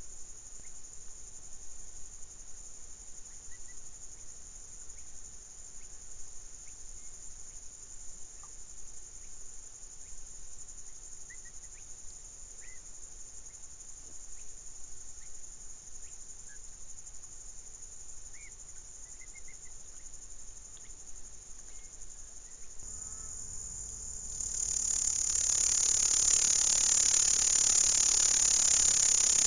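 Steady high-pitched insect stridulation in reedy wetland, with faint short bird chirps here and there. About three quarters of the way through it becomes a much louder, dense hiss.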